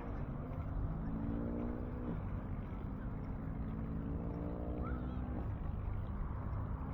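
Road traffic passing: a vehicle engine's hum comes through twice, briefly about a second in and then for a couple of seconds rising slightly in pitch, over a steady low rumble.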